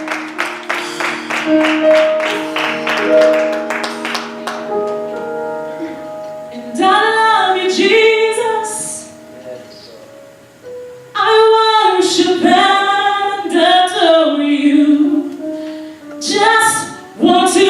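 Gospel singing: a strummed guitar chord pattern at about three strokes a second for the first few seconds, fading out, then female-led voices singing short phrases with pauses between them, mostly unaccompanied.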